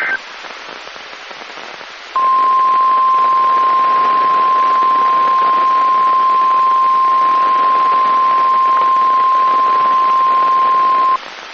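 NOAA Weather Radio's 1050 Hz warning alarm tone: a single steady tone held for about nine seconds, starting about two seconds in over radio static hiss. It signals that a new warning broadcast follows.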